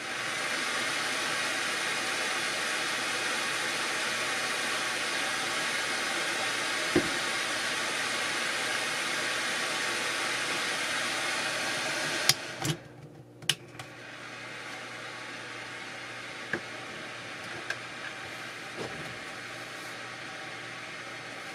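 A 12 V 150 W car heater fan running with a steady rush of air. About twelve seconds in there are a few sharp clicks, and the fan then carries on more quietly, with a few light ticks.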